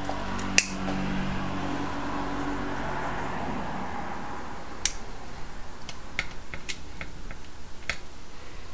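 A lighter struck with one sharp click, then the soft hiss of its flame for a few seconds. A few small separate clicks follow from handling the rubber tubing.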